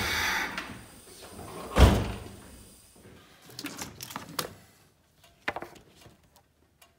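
A single loud thump about two seconds in, a vehicle door being shut, after the engine-bay noise dies away in the first second. A few faint clicks and small knocks follow.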